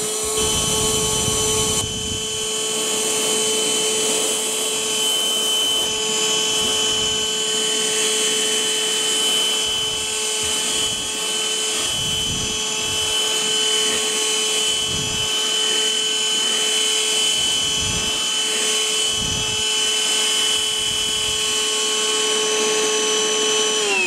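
A cordless NOVETE handheld wet & dry vacuum cleaner runs with a steady high whine while sucking liquid off a plate, with a few short low sounds along the way. The whine starts to wind down in pitch at the very end as the motor is switched off.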